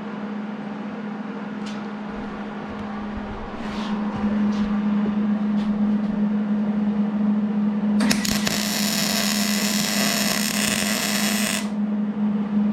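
Wire-feed welder laying a bead: a steady low hum throughout, louder from about three and a half seconds in, then the arc crackling and buzzing for about three and a half seconds before it cuts off near the end.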